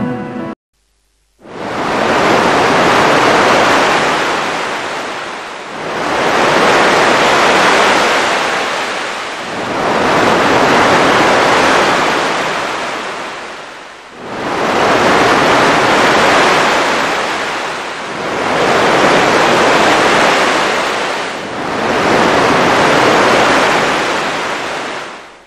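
Ocean surf washing onto a sandy beach, swelling and falling back six times, each surge lasting about four seconds.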